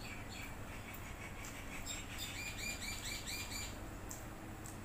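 A bird chirping: a few high notes near the start, then a quick run of about ten repeated chirps in the middle.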